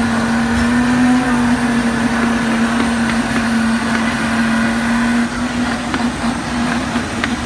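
Steady machine hum with one constant low tone over a noisy background, and a few light clicks near the end.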